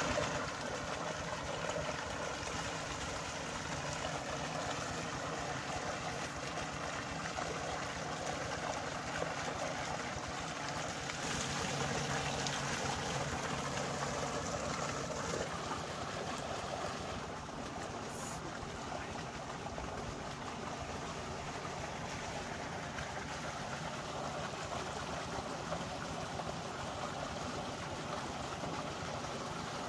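Water gushing steadily from a large pipe outlet into a concrete tank, with a constant rushing splash as it hits the water below.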